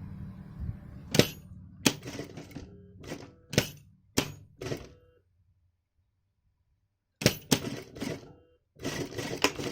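A steady hum dies away, then a run of irregular sharp clicks and knocks as the sewing machine and tools are handled. The knocks break off for about two seconds and then come thick again near the end.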